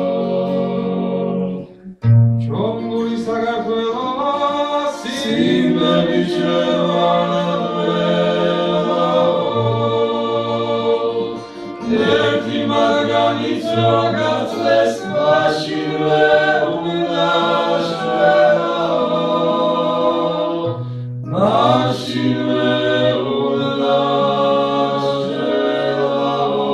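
Male vocal ensemble singing a Georgian polyphonic folk song a cappella-style: upper voices move over a low bass line held steady beneath them. The phrases break briefly about 2 s in, near 11 s and near 21 s, each time followed by a fresh entry.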